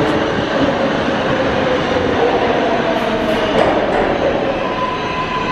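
R188 subway train pulling into an underground station and slowing, its wheels and running gear loud on the rails, with tones that waver in pitch. A steady high tone comes in near the end as it nears its stop.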